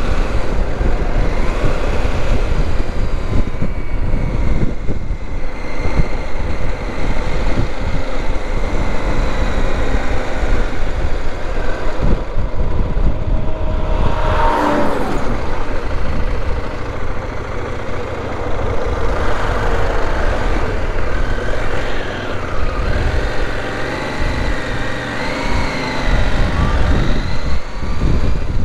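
Motorcycle engine running at road speed under heavy wind rumble on the rider's microphone, its pitch rising and falling in the second half. A brief louder rush comes about halfway through.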